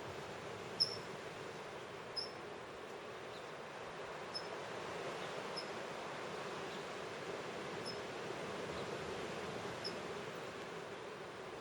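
A bird giving short, high chip calls at irregular intervals of one to two seconds, the loudest about a second in, over a steady rushing background.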